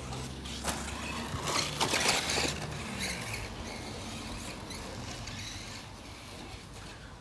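Stock Tamiya RC cars with brushed 540 electric motors on 2S LiPo driving over a dirt track: motor whine shifting in pitch with the throttle, over tyre and dirt noise that grows louder about two seconds in.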